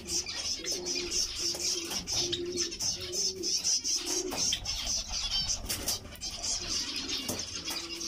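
A flock of zebra finches calling, many short high calls overlapping in a steady chatter, with a lower repeated note sounding over and over during the first half.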